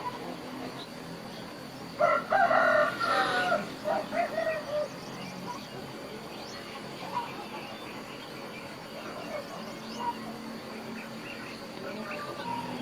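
A rooster crowing once, a loud call of about three seconds starting about two seconds in, with faint short bird chirps around it.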